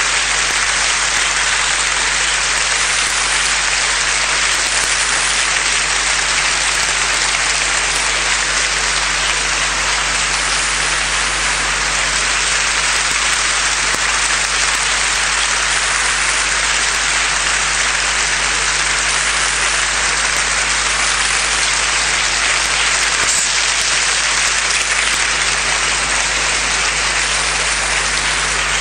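Large theatre audience applauding, a dense, even clapping that holds steady without a break.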